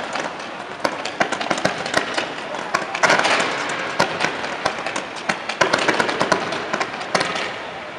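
Fireworks display: a rapid, irregular run of crackling pops and bangs from rockets and fountains, thickening into a denser, louder burst about three seconds in.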